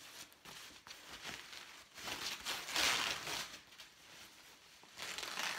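Thin foam packing sheet rustling and crinkling as it is pulled off a new electric guitar's neck and headstock, loudest in a stretch about halfway through and again near the end.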